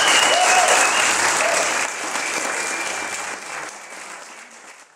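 Audience applauding, the applause fading out over the last few seconds.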